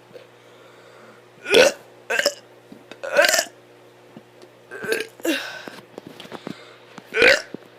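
A child burping, a series of about five short burps, the loudest about one and a half seconds in and near the end.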